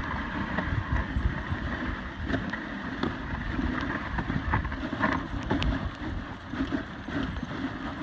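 Dog sled travelling over snow behind its team: a steady hiss and scrape of the runners, with scattered clicks and knocks from the sled and a low rumble underneath.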